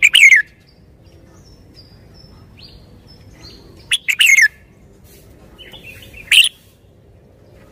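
Red-whiskered bulbul singing short, loud warbled phrases: one at the start, a longer one about four seconds in, and a brief one past six seconds.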